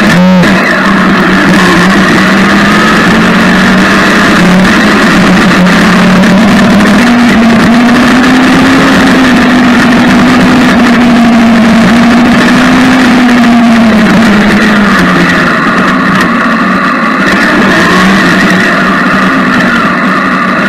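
Yamaha MT-09's three-cylinder engine running at low speed, pulling gently in a low gear on gravel; its pitch rises a little about a third of the way in, holds, then eases back down a few seconds before the end.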